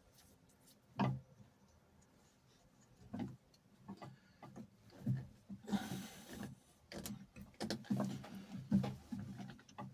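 Scattered handling knocks and clicks from hose and fittings being worked by hand, with a short rustle about six seconds in and a quicker run of small knocks near the end.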